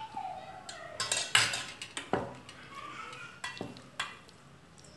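Stainless steel mixing bowl clinking and knocking as chicken pieces are rubbed with wet masala marinade by hand: a string of sharp clinks, the loudest about a second and a half in, with fainter knocks later on.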